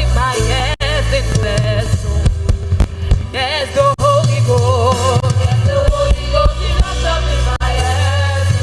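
Live gospel praise music: wavering, melismatic singing over bass, keyboard and drums.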